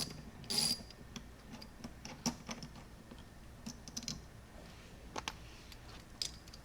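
Hand tools and small bolts being worked on a car's shifter assembly: a short rasping burst about half a second in, then a few scattered sharp metallic clicks.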